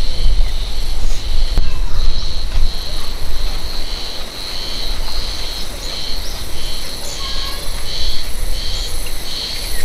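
Wind buffeting the microphone with a low rumble, under the steady high chirring of insects that comes in repeated pulses.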